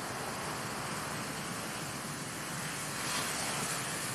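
Steady outdoor background hiss, with a brief brighter swell about three seconds in.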